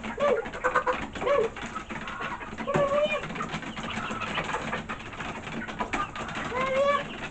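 Chickens giving short, low calls, about six of them scattered through, each note rising and falling a little.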